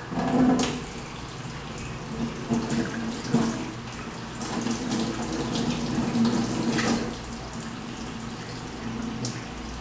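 Kitchen tap running in a steady stream into a stainless-steel sink, splashing as cutlery is rinsed under it. A few brief knocks and clinks come through.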